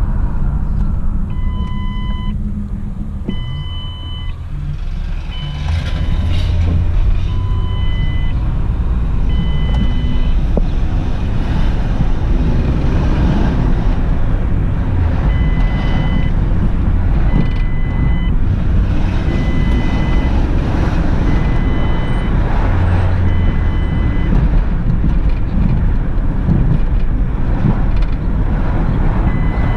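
2003 Ford Escape being driven, engine and road noise heard from inside the cabin. Over it the seatbelt reminder chime beeps about once every two seconds, in spells that stop and start again, because the driver's belt is unfastened.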